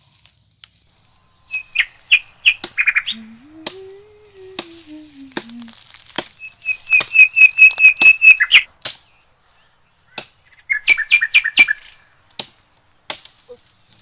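A bird calling loudly in three bouts of quick, clipped notes, the middle bout the longest at about two seconds.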